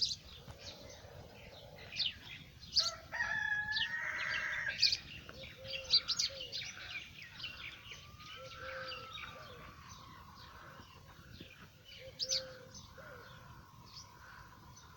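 Small birds chirping in quick, repeated high notes, with a rooster crowing once about three seconds in.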